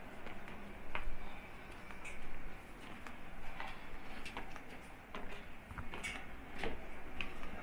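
Scattered light clicks and taps at irregular intervals over a low background hum.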